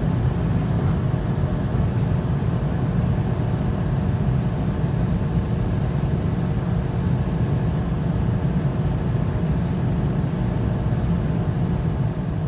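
Seat Ibiza's 999 cc naturally aspirated three-cylinder engine running flat out at about 6,200 rpm in fifth gear, at its top speed of around 205 km/h, heard from inside the cabin. It is a steady, unchanging drone.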